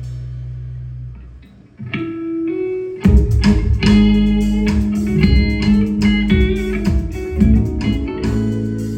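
Live rock band music: a held low note dies away, a few electric guitar notes play, and about three seconds in the full band comes in with drums, bass and guitars.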